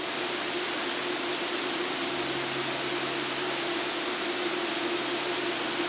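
Steady cockpit noise of an Extra 300L aerobatic plane in flight: an even rushing hiss of engine and airflow with a faint steady hum underneath.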